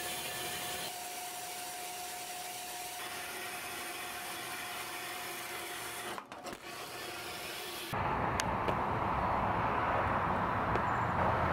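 Horizontal metal-cutting bandsaw running steadily, its blade sawing through the cast iron horn of a 55 lb anvil. About eight seconds in the sound turns abruptly louder and lower.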